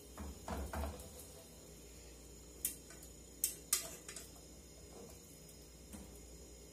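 A fork and metal cookware clinking: a few soft knocks, then three sharp light clinks within about a second, with a faint steady background from the stove.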